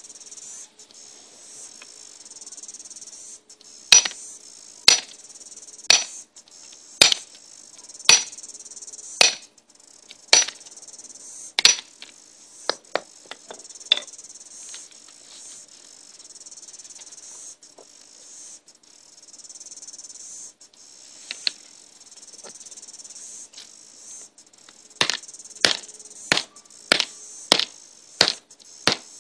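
Hammer blows smashing an old iPod: sharp cracking strikes, about one a second for several seconds, then a few scattered ones, then a quicker run of nearly two a second near the end. Under them runs a steady high-pitched chorus of cicadas.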